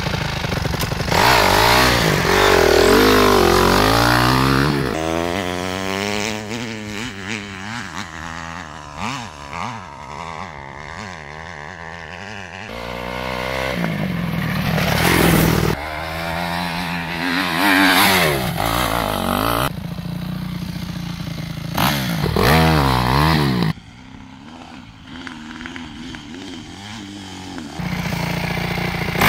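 Small dirt bike's engine revving up and down as it is ridden, its pitch rising and falling again and again, with several louder surges and a quieter stretch near the end.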